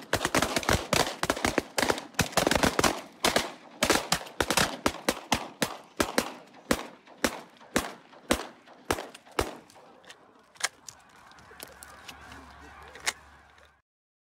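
Rapid shotgun fire from several hunters, dozens of shots close together at first and thinning out over about ten seconds, amid a flock of geese honking. A last lone shot comes near the end, then the sound cuts off.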